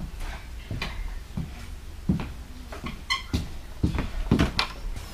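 A series of separate knocks and clunks, about eight over a few seconds, as of things being handled and set down, with a brief high squeak about three seconds in.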